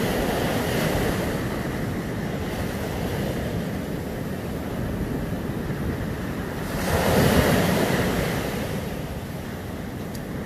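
Ocean surf breaking and washing up a sandy beach, with wind buffeting the microphone. One wave comes in louder about seven seconds in.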